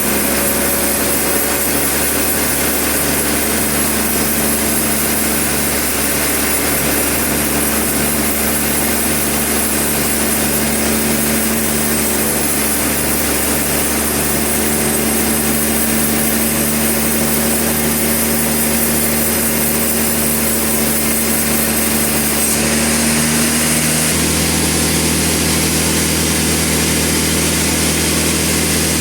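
Sawmill machinery running steadily: an engine-driven saw drone with held tones, which shifts to a different pitch about three quarters of the way through.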